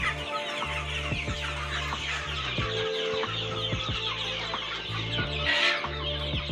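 A flock of young chickens peeping and clucking continuously in many short high calls, with one louder call near the end. Background music with sustained low notes plays underneath.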